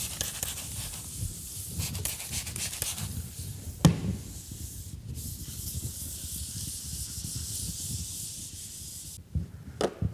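Fiberglass gelcoat patch being wet-sanded by hand with fine-grit paper (600 up to 1500 grit): a steady, high, hissing rub of paper over the hard surface. There is one sharp knock about four seconds in, and the rubbing stops just before the end.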